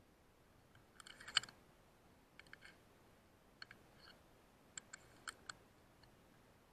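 Light mechanical clicks from a rifle's action being handled: a cluster about a second in, then short pairs of clicks several times after. The rifle was fired or worked without its magazine in.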